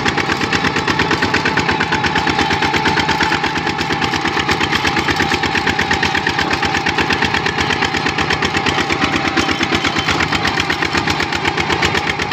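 Kubota RT-series two-wheel tractor's single-cylinder diesel engine running steadily at speed while pulling its trailer, a rapid, even, percussive chug of firing strokes.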